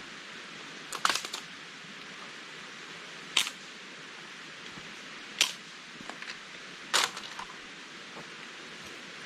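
A mountain stream running steadily, with a few sharp clicks or knocks every couple of seconds, some in quick clusters.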